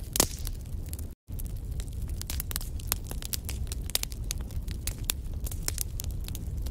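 Wood fire burning in a fireplace: logs crackling with many sharp pops over a low steady rumble, one louder pop just after the start. The sound cuts out for an instant about a second in.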